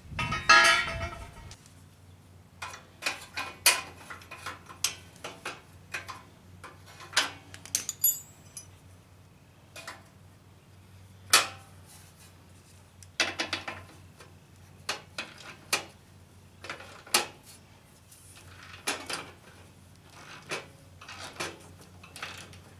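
Irregular metallic clinks and clanks of hand tools and steel mower parts and bolts being handled and set down, with a louder clank at the very start.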